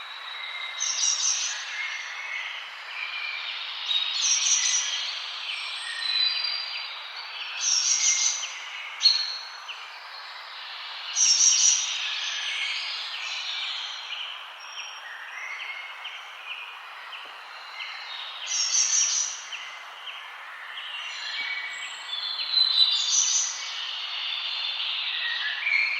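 Forest birds singing in a dense chorus of chirps and whistles, with a loud, high, rapid song bursting out every few seconds over a steady background hiss.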